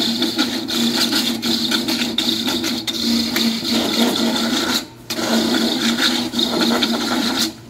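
Electric coconut grater's motor running with a steady hum and whir. It cuts out for a moment about five seconds in and again near the end, starting up again each time.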